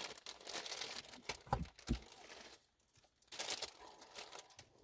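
Hands handling a car-stereo wiring harness and plastic connectors in a dashboard radio opening. Two spells of rustling and light plastic knocks: the first runs about two and a half seconds, and a shorter one comes after a brief pause.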